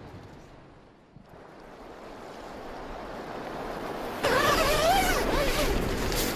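Steady rushing noise of wind and water. It dips low about a second in, builds again, and turns louder about four seconds in, where a few wavering pitched notes sound above it.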